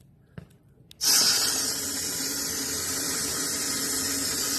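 Kitchen faucet turned on about a second in, then water running steadily from the tap into a bowl of packing peanuts.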